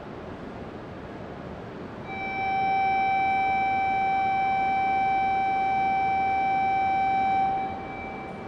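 A steady electronic tone holds one pitch for about five and a half seconds, starting about two seconds in and cutting off abruptly, over the steady noise of the station platform.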